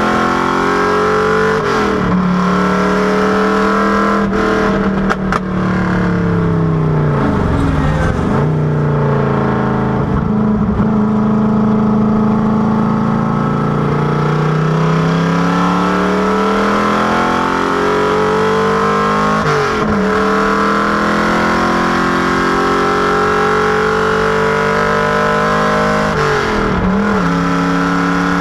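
Factory Five Racing Cobra Daytona Coupé replica's V8 engine driven hard, the revs climbing and then dropping sharply at gear changes several times, with slower dips and recoveries where it slows and pulls away again.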